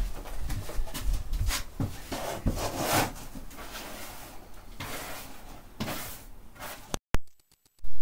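Irregular knocks, clatters and short scrapes of a plastic dustpan and other things being handled in a small wooden shed, while spilled soil is cleared up. The sound cuts off suddenly about seven seconds in.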